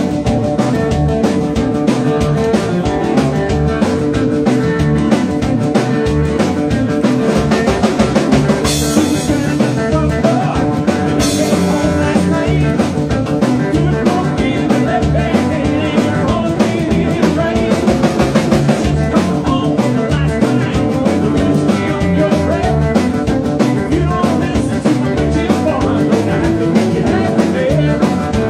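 A band playing rock and roll live: an electric hollow-body guitar, an upright double bass and a drum kit keeping a steady beat.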